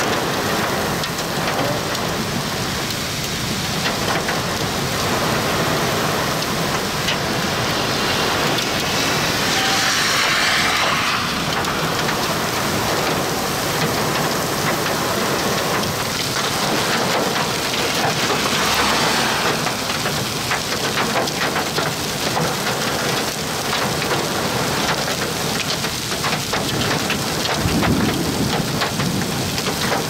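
Heavy thunderstorm rain pouring down in a steady hiss, with strong wind gusts swelling up twice, about a third of the way in and again past halfway. In the later part many sharp taps from drops hitting close by.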